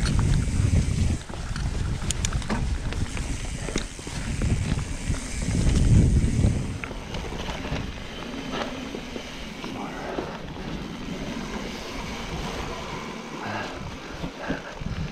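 Trek Fuel EX 9.8 29 mountain bike rolling along a wet trail, with scattered clicks and rattles from the bike. Wind buffets the microphone for the first half and drops away about halfway through.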